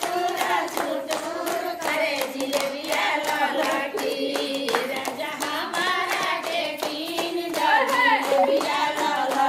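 A group of women singing a traditional wedding song together, clapping along in a steady beat.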